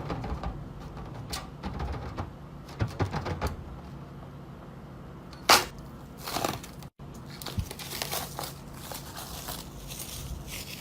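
Slime being handled and pressed, giving crackling, popping clicks, with one sharper, louder pop about five and a half seconds in.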